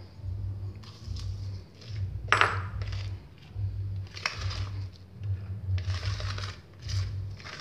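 A single sharp, ringing clink of glass about two seconds in, as a glass bowl is set down. Then a plastic spatula scrapes against a plastic bowl, folding chopped peanuts and chocolate sprinkles into thick cake batter.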